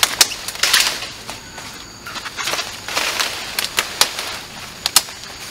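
Dry leaves and undergrowth rustling, with irregular sharp snaps and clicks of stems and twigs being broken or trodden on.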